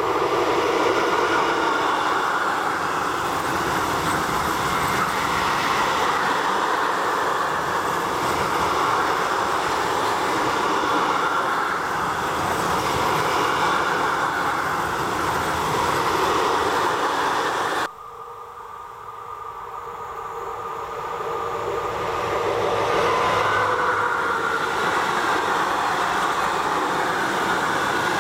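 Freight train rolling past on the rails, a loud steady noise of wheels and wagons. It cuts off suddenly about two-thirds of the way through, and the sound of a train then builds up again over several seconds.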